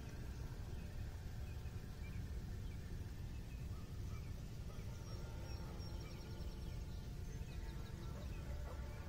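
Faint early-morning calls of birds: scattered chirps and a few short trills, most of them about halfway through, over a steady low rumble of outdoor ambience.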